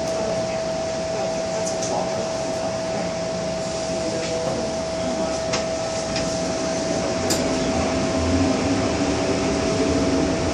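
Inside an MTR M-Train passenger car: a steady ventilation hum with a constant whine. About three-quarters of the way through, a low hum with rising tones comes in and the level climbs a little, as the train's motors begin to pull it away.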